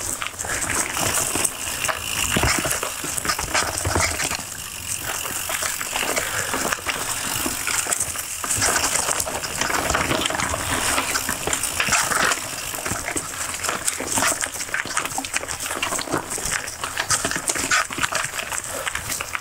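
Polygon full-suspension mountain bike rolling over a leaf-covered dirt trail: knobby Maxxis Minion DHF tyres crackle and rustle through dry fallen leaves, with the frame and drivetrain rattling over bumps in many small knocks.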